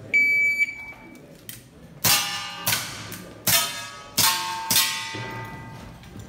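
A shot-timer start beep, one short steady tone, then five ringing metallic clangs over about three seconds as CO2 revolver pellets strike hanging enamelware pan targets.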